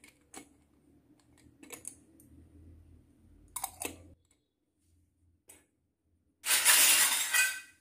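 Light metallic clicks and taps as a miniature steel toy canister's wire handle and pull-ring lid are fingered and turned over. Near the end comes a much louder burst of scraping noise that lasts about a second.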